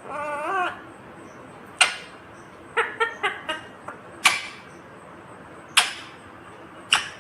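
Indian ringneck parrot calling: a short wavering, warbled call at the start, then sharp single screeches about every one and a half seconds, with a quick run of short chirps around three seconds in.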